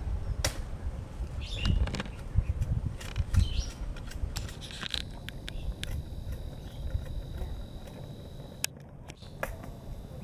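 Machete chopping at green wood: a handful of sharp cuts, spaced unevenly, over a low rumble.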